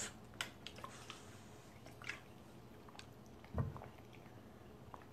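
Faint swallowing and wet mouth sounds of a person drinking from a water bottle, with scattered small clicks and one soft low thump about three and a half seconds in.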